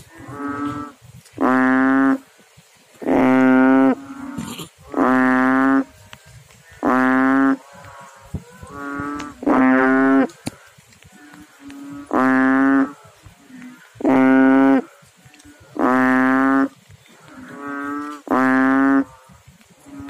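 Banded bullfrog (Asian painted frog, Kaloula pulchra) calling from the water with its throat sac inflated. It gives about nine loud, low, steady-pitched calls, each under a second long, repeating roughly every two seconds, with fainter, shorter calls between them.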